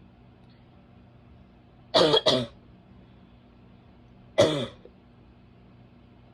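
A woman's barking cough: two quick coughs close together about two seconds in, then a single cough a couple of seconds later, each dropping in pitch.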